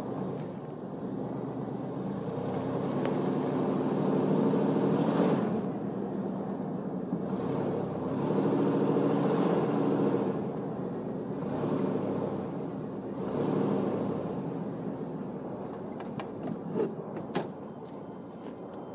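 GMC pickup truck engine revving hard in several surges and easing off between them, straining against a strap to pull over a dead tree. A few sharp snaps near the end.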